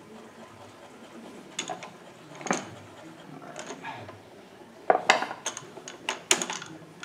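Small metal tools clinking and clattering as they are picked up and set down. There are a few separate clinks early on and a quick run of louder clinks about five and six seconds in.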